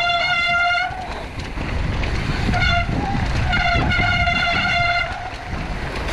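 Mountain bike disc brakes squealing as the rider brakes on a descent: a steady high-pitched squeal that comes three times, briefly about halfway through and for a longer stretch after that, over a constant low rumble.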